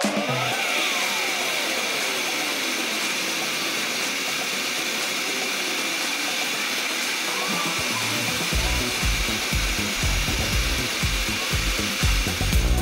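Background dance music: a steady hiss with a tone sweeping down in pitch, then a heavy bass beat coming back in about two-thirds of the way through.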